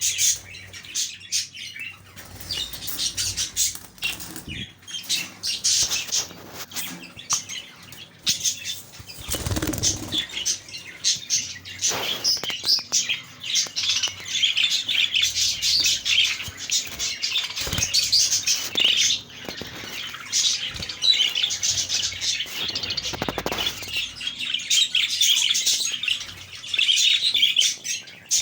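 A flock of king size (exhibition) budgerigars chattering and chirping continuously, with a few short flutters of wings.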